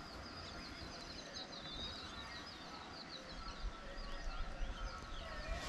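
Small birds chirping: a quick run of high, rapid chirps through the first half, then scattered shorter calls, over a low rumble that grows in the second half.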